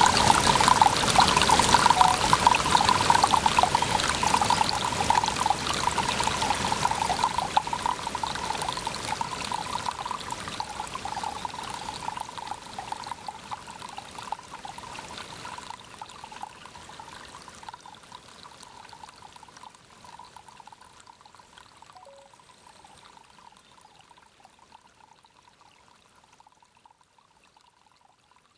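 Water pouring and trickling steadily, with a gurgling pitch. It fades out gradually to near silence by the end.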